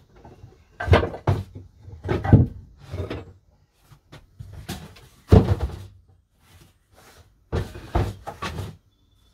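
Knocks, bumps and scrapes of things being handled and shifted around inside a small plywood shed, coming in several irregular bursts with short pauses between; the loudest come about two and a half and five and a half seconds in.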